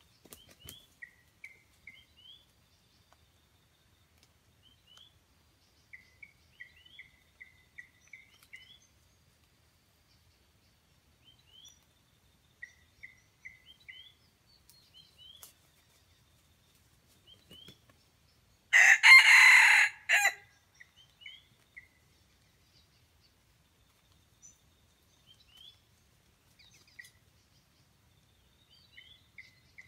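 A red junglefowl rooster crows once, loudly, for under two seconds about two-thirds of the way in. Faint high chirps sound in short runs around it.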